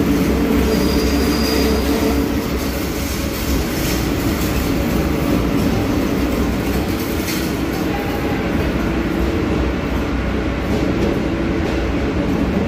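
Buenos Aires Subte Line E train running on its rails with a steady rumble. A brief high wheel squeal comes about a second in, and a few sharp clicks follow later.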